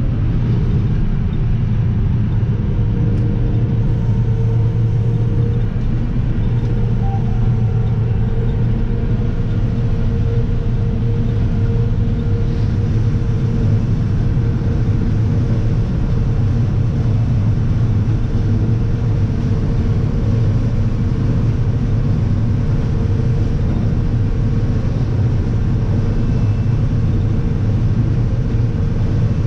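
Combine harvester running steadily while shelling corn: a deep, even drone with a faint steady hum above it, heard from inside the cab.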